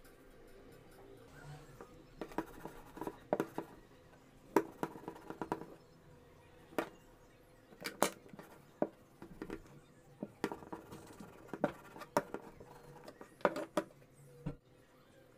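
Handling noises on a tabletop: irregular sharp clicks and knocks with light rustling as cotton fabric is worked and a clothes iron is set down and moved. A faint steady hum runs underneath.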